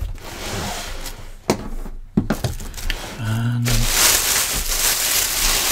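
Plastic packaging bags crinkling and rustling as they are handled inside a cardboard box, with a couple of light knocks in the first half. The crinkling becomes loud and continuous after about four seconds.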